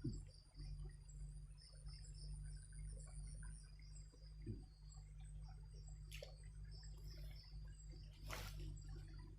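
Faint night insects chirping: a steady high trill with short repeated high chirps over a constant low hum, and a couple of sharp clicks, one about six seconds in and a louder one near eight and a half seconds.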